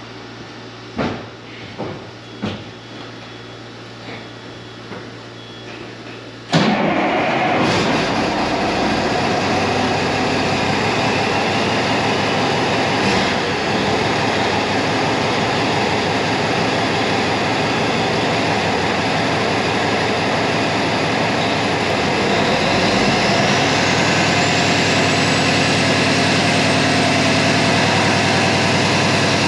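A few knocks, then about six and a half seconds in the Kenworth truck's diesel engine starts suddenly and runs steadily. It is being run to drive the PTO hydraulic pump for a test of the new valve. About two-thirds of the way through the sound grows a little louder and a faint high whine rises.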